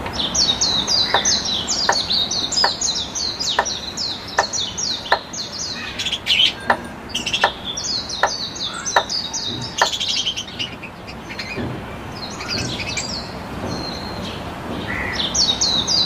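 Budgerigars chirping and chattering in quick, high, downward-sweeping notes, pausing briefly past the middle. For the first ten seconds a light click comes about every 0.7 s as the plunger of a hand pump sprayer is worked.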